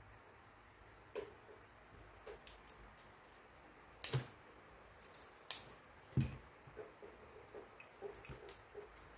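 A small screwdriver and fingers working the wound coil off a small electric fan motor's steel stator laminations: scattered light clicks, knocks and scrapes of metal, the loudest about four seconds in.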